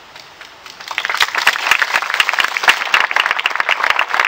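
Crowd applauding, with many hands clapping in a dense, uneven patter that starts about a second in and keeps going.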